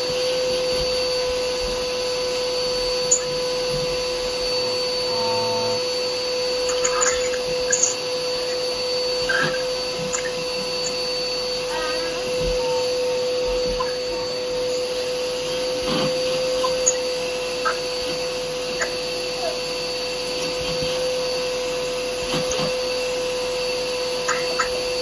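An 11-year-old Hoover Whirlwind vacuum cleaner running steadily with a constant whine. Occasional sharp clicks and rattles sound over it.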